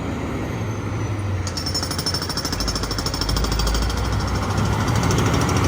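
Rapid, even clatter of a heavy truck's diesel engine close by, growing slowly louder, with a deep rumble swelling in the middle.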